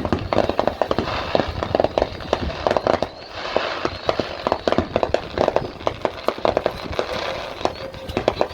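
Fireworks going off: a dense, irregular run of pops and cracks, many in quick succession.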